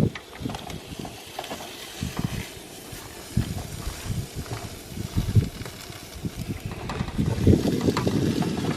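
Rainbow trout frying in a pan, a steady sizzling hiss, with some irregular low rumbling and a few small clicks.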